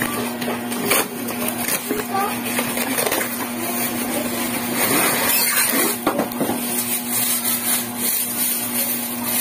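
Bubble wrap rustling and crinkling as a wrapped lamp part is handled, with a few clicks, over a steady low hum and faint background voices.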